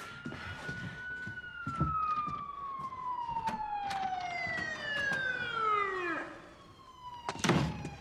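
Police sirens wailing, the pitch rising near the start and then falling slowly over about five seconds before another wail begins. A few thuds sound over the sirens, the loudest about seven and a half seconds in.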